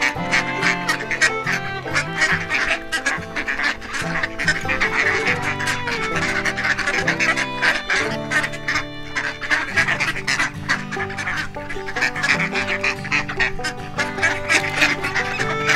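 Ducks quacking repeatedly, mixed with background music of held notes.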